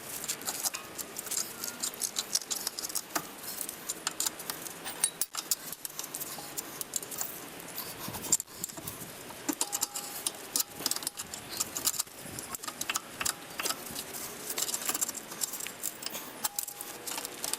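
Irregular light metallic clicks, taps and rattles of hands and tools working the bottom piece off a compressed rear coil spring.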